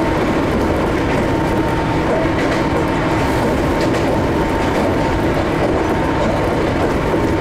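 Ohmi Railway 800 series electric train running at a steady speed between stations: a steady wheel-on-rail rumble with a faint clickety-clack and a constant hum.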